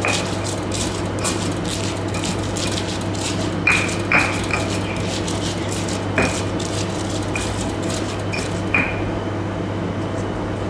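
Stone pestle pounding green bird's-eye chillies with salt in a stone mortar for a coarse chilli paste: a steady run of knocks and mashing, with a few sharper, ringing stone-on-stone clinks. The pounding stops near the end.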